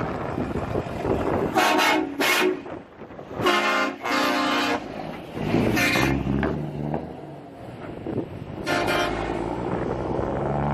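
Passing Volvo FH trucks sounding their horns in about six blasts, some short and some longer, over the low rumble of a diesel running through an open straight-pipe exhaust.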